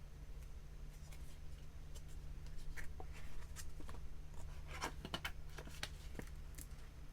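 Small hand-handling noises from a charm stapler and paper: scattered light clicks and paper rustles, busiest around the middle, over a low steady hum.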